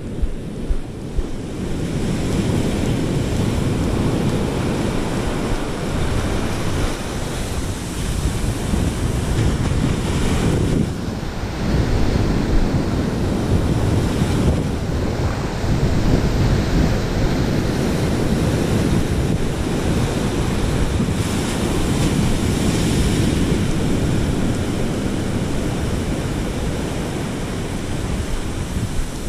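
Rough surf breaking and washing up the beach in a steady rush, mixed with strong wind buffeting the microphone.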